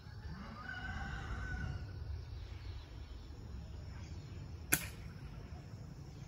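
A single air-rifle shot, a short sharp crack about three-quarters of the way through. Before it, a rooster crows faintly.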